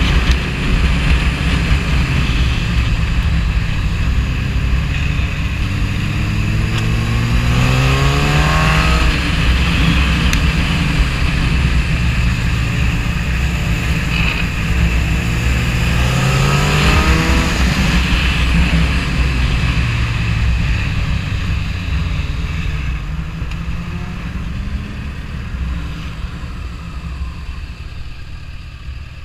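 Suzuki GSX-R 1000's inline-four engine under way with heavy wind rush, its pitch climbing twice as the bike accelerates. Engine and wind die down near the end as the bike slows.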